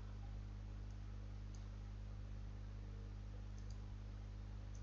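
A few faint computer mouse clicks, one about a second and a half in, a close pair later and one near the end, over a steady low electrical hum.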